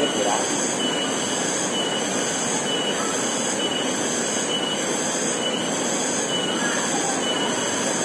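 Steady rush of a waterfall and stream, with a high insect buzz, typical of cicadas, pulsing about once a second over it.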